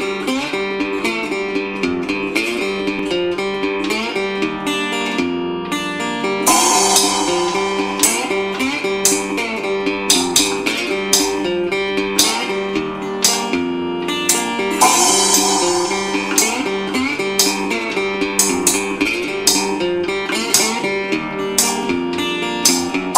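Instrumental blues-rock intro: a resonator guitar plays a picked riff, and a drum kit with cymbals comes in about six seconds in, keeping a steady beat.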